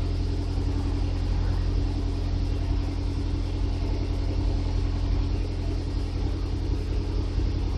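Exhaust note of a 2010 Mazda3's four-cylinder engine through a Magnaflow aftermarket muffler, idling steadily with a deep, even rumble while still cold from a cold start.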